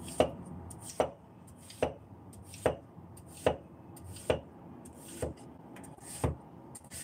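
Cleaver slicing a celtuce (stem lettuce) stalk on a plastic cutting board: a steady, unhurried run of about eight knocks of the blade on the board, a little under a second apart.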